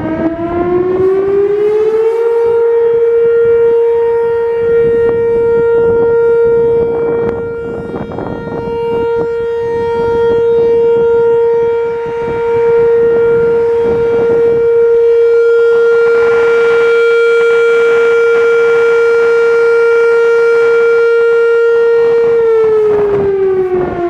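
Whelen WPS-4004 rotating electronic outdoor warning siren sounding a short steady alert tone. It winds up in pitch over the first couple of seconds, holds one steady tone that swells and fades as the siren rotates, and winds down in pitch near the end.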